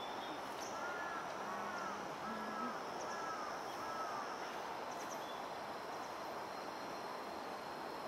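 Insects trilling steadily as a high, even background over outdoor ambient noise, with a run of about seven short rising-and-falling notes over the first few seconds.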